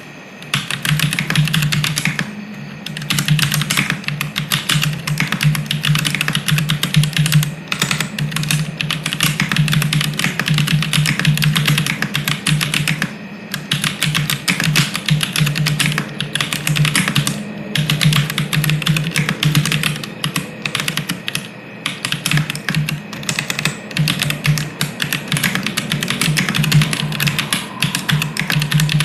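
Continuous typing on a Synthesis60 mechanical keyboard with stock Holy Panda tactile switches on an FR4 plate, no case dampener, and ABS Cherry-profile keycaps. The keystrokes come in fast runs with a few short pauses.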